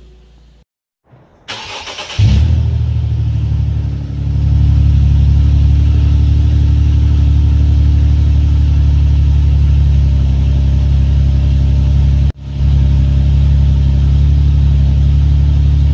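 Infiniti G37xs's 3.7-litre V6 running through test pipes in place of its catalytic converters, a loud, steady exhaust drone at an even engine speed. It comes in about two seconds in, after a brief silence and a short burst of noise, and breaks off for an instant late on.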